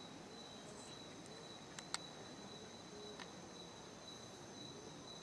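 Insects trilling steadily at a high pitch, with a sharp click about two seconds in and a fainter one about a second later.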